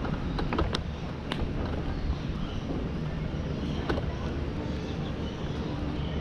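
Wind buffeting the microphone, a steady low rumble, with a few sharp clicks in the first second and one more about four seconds in.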